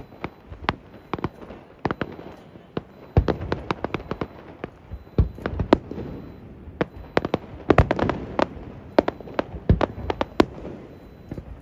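Fireworks display: a fast, irregular barrage of sharp bangs and crackling from bursting aerial shells, with a few louder, deeper booms among them.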